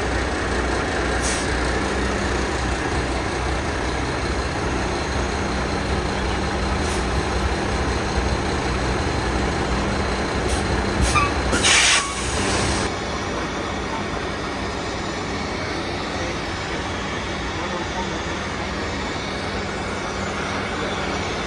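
Heavy diesel truck engine running steadily, with a loud hiss lasting about a second near the middle.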